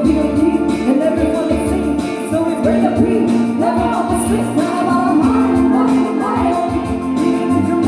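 Music: a pop song with singing over instruments and a steady beat.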